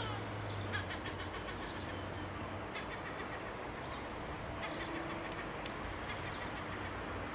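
Faint, steady rumble of a train on the line, with a few small birds chirping over it.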